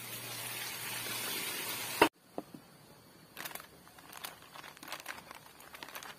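Water pouring from a bucket for about two seconds, cut off suddenly by a sharp click. After that comes the scattered crinkling of a plastic snack packet being handled and opened.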